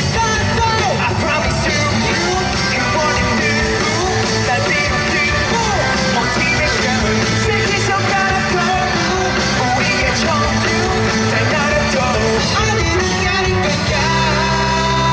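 Live rock band playing, with sung vocals over drums, bass and guitar. About a second before the end the drums stop and held guitar chords ring on.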